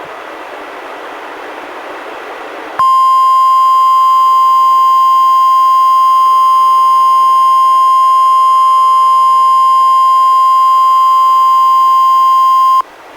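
NOAA Weather Radio 1050 Hz warning alarm tone: a single loud, steady tone that lasts about ten seconds and starts about three seconds in after radio hiss, then cuts off sharply. It is sent as a weekly test of the warning alarm.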